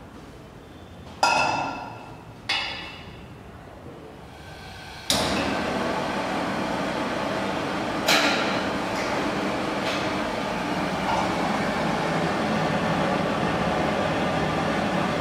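Two ringing metal clanks as a wok is handled and set on the iron grate of a gas range. About five seconds in, a gas burner lights with a sudden, steady hiss of flame that carries on, with one more clank a few seconds later.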